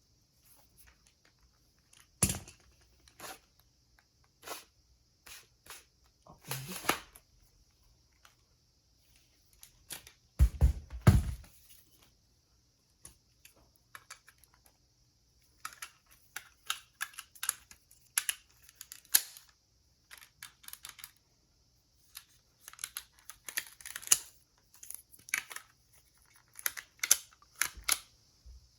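Scattered clicks, taps and light knocks of objects being handled, with a heavier thump about ten seconds in and quicker runs of clicking in the second half.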